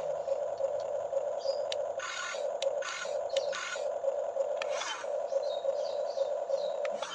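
Small electric motor of an RC toy excavator whining steadily in a pulsing tone, with several short scraping bursts a couple of seconds in.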